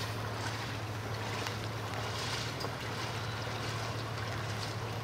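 Legs wading through knee-deep floodwater, the water sloshing and swishing with each step, over a steady low hum.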